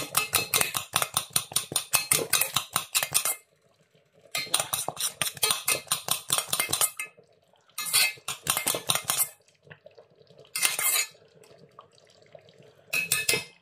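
Metal spoon beating ewedu (jute leaf soup) in a stainless steel pot: a rapid scraping clatter of metal against the pot. It comes in two long spells with a short pause between them, then three short bursts near the end.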